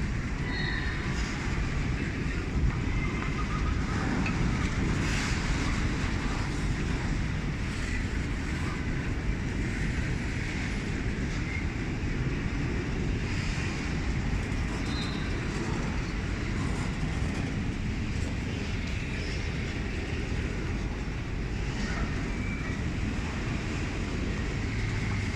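Freight train rolling past with a steady low rumble and occasional faint clicks.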